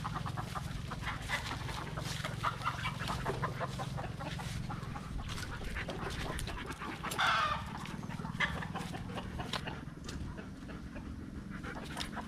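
Free-range chickens clucking, with one louder call about seven seconds in, over short rustles and ticks from movement through grass and leaves.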